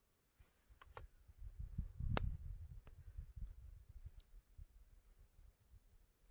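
Faint handling sounds as a knife and a fire-roasted pepper are worked over a wooden stump: scattered small taps and clicks. The loudest is one sharp click a little over two seconds in, and a knife is laid down on the wood.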